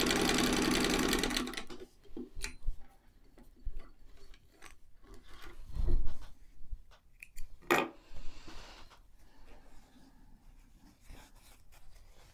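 Singer 66-6 sewing machine stitching through two layers of fabric, a fast even run of needle strokes that stops about a second and a half in. Then scattered clicks, a soft thump and a brief rustle as the work is handled.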